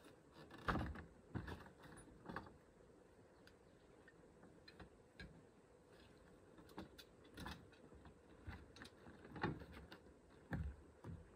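Faint, scattered knocks, clicks and clatter of tools and wood being handled on a plank floor, with a few louder thumps about a second in and near the end.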